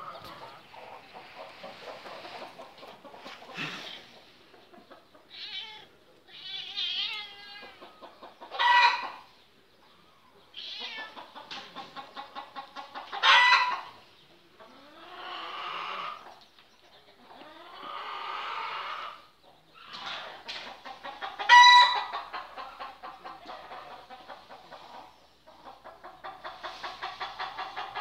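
Chickens clucking in a run of short pulsed calls, with three loud, sharp calls standing out about nine, thirteen and twenty-two seconds in.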